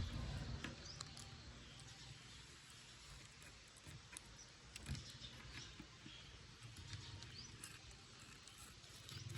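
Puppies eating: faint scattered chewing and smacking clicks, with a few short high squeaks and a soft thud about five seconds in.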